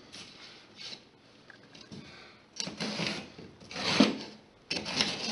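Pencil scratching along the edges of a drywall patch held flat against a painted drywall wall, tracing its outline in about three rasping strokes in the second half.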